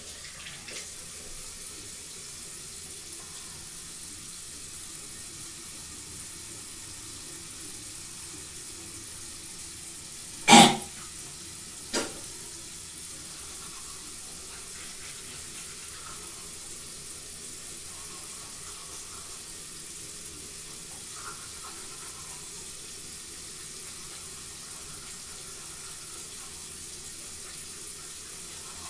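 Bathroom sink tap running steadily into the basin. A sharp, loud knock comes about ten seconds in, and a smaller one follows a second and a half later.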